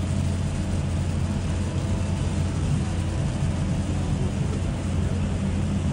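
Steady cabin noise of a parked airliner just after landing: a constant low hum with a hiss of air over it.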